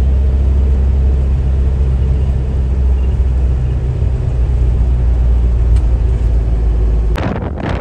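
Steady low rumble of a 30-seat coach's engine and road noise heard from inside the moving bus. Near the end it changes abruptly to gusting wind noise on the microphone.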